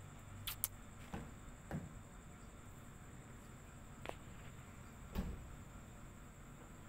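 A handful of faint, sharp clicks and light knocks at irregular intervals, the loudest a little after five seconds, over a steady low background hiss.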